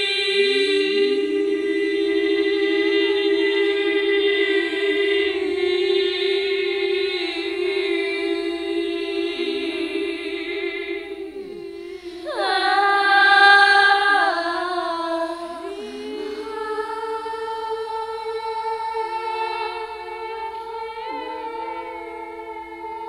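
Layered a cappella voices singing long, held notes with no instruments, two lines sounding together in places. A new, louder phrase comes in about halfway through, then the voices settle back to quieter held notes.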